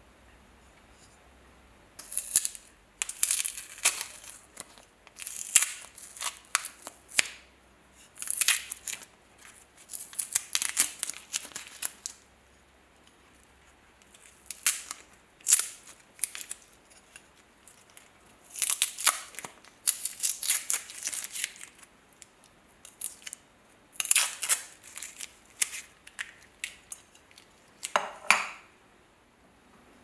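Crinkly yellow wrapping being peeled and torn off a brass belt buckle and crumpled by hand, in repeated bouts of crackling and tearing with short pauses between them.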